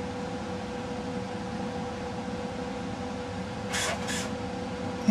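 A steady low hum with a constant tone, from equipment in the room. About four seconds in, two short hissing puffs come close together.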